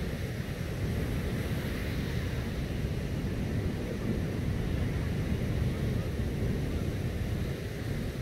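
Wind buffeting the microphone over a steady wash of surf, a rumbling, unbroken noise.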